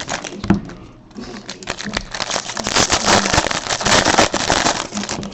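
Plastic packaging crinkling and rustling as it is handled, in a run of irregular crackles, with faint voices behind it.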